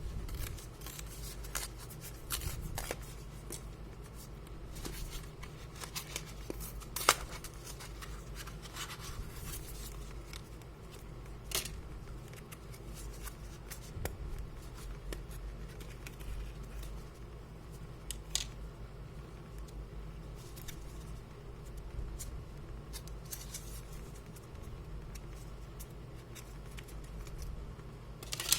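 Small clicks, scrapes and a few sharper snaps from hand work on a laptop's plastic case and parts, over a steady low hum.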